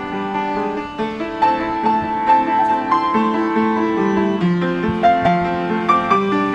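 Instrumental piano music: a melody of short notes over held chords.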